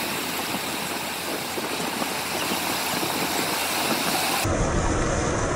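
Muddy flash-flood torrent rushing across a road, a steady heavy rush of water. About four and a half seconds in the sound cuts to a deeper, heavier rush.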